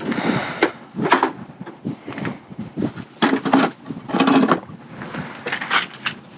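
Irregular knocks, scrapes and rustling as a folding step stool is set against a steel dumpster and climbed, hands gripping the dumpster's rim.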